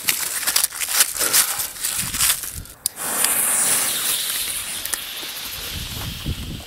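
Crinkling and clicking of a firecracker pack being handled, then about three seconds in a Weco Super Böller II fuse catches and hisses, spitting sparks and fading slowly as it burns down toward the charge.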